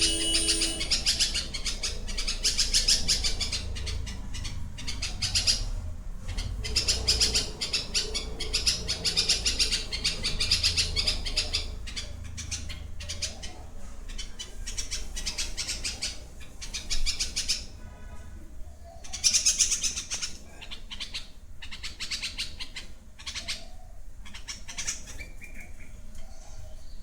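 Birds chirping and squawking in dense, rapid high-pitched calls, coming in loud stretches with brief lulls about six seconds in and again near the middle.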